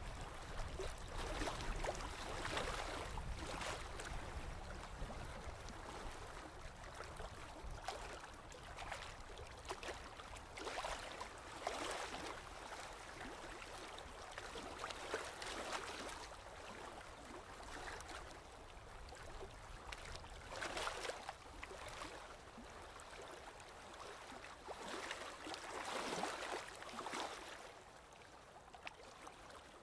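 Sea waves washing in, a surge of wash every few seconds at an uneven pace, over a low rumble.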